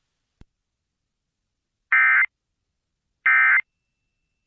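Emergency Alert System end-of-message data bursts: two short, identical bursts of shrill digital warbling tones about a second and a half apart. They are the coded signal marking the end of the alert.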